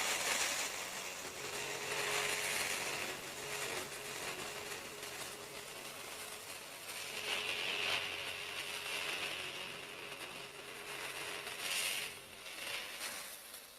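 Reciprocating saw running and cutting into pallet wood, a steady motor hum under a rasping noise that swells and eases several times.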